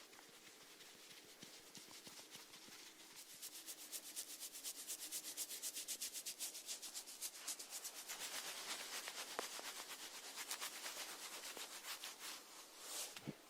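Snail feeding close to the microphone, its radula rasping at the food in fast, even scraping strokes. The strokes begin about three seconds in and die away near the end.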